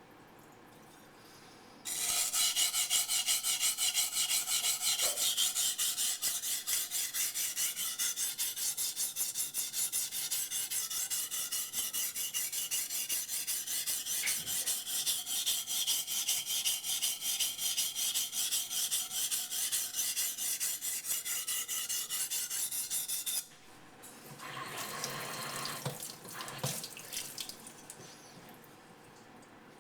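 Becker BK9 knife blade stroked rapidly back and forth on a wet bench waterstone, an even, gritty rasping rhythm that starts about two seconds in and stops abruptly after about twenty seconds. A brief splashing water sound follows near the end.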